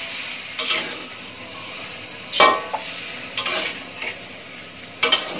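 A spatula stirring and scraping a stir-fry of salted squid, tofu and vegetables in a metal wok, with four or five sharp clanks against the pan, the loudest about halfway through. Under the clanks the food sizzles steadily after a splash of water has gone in.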